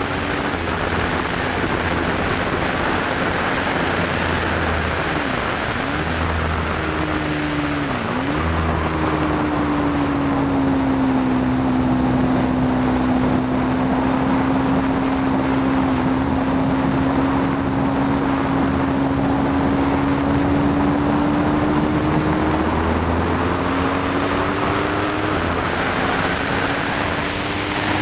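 Aprilia Tuono V4's V4 engine pulling hard at track speed, with heavy wind rush over the bike-mounted microphone. The engine note dips sharply twice early on, then holds one long steady note through the middle and climbs again near the end.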